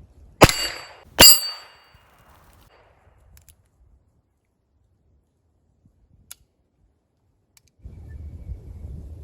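Two sharp shots from a Heritage Rough Rider .22 single-action revolver, under a second apart, each followed by a brief metallic ring. A faint click comes about six seconds in.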